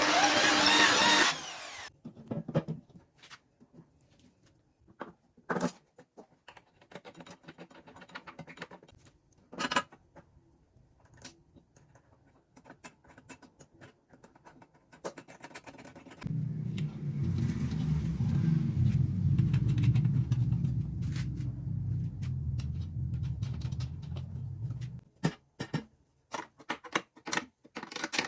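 Workshop sounds of metalwork: a machine running that stops about a second and a half in, then scattered clicks and knocks of tools and parts being handled, with a low rumble for about nine seconds in the middle.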